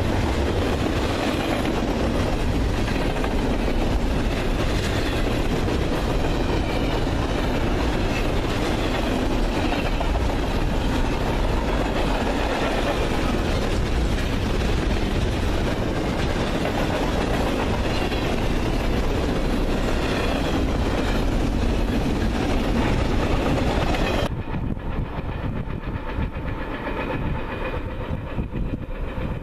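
Intermodal freight cars rolling past at track speed with a steady rumble and wheels clicking over the rails. About 24 seconds in, the higher part of the sound drops away abruptly, leaving a duller rumble.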